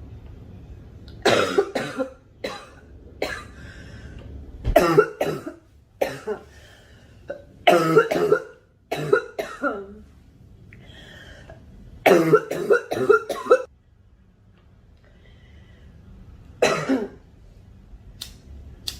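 A girl coughing in repeated fits of several quick coughs each, separated by short pauses. The longest fit comes about twelve seconds in.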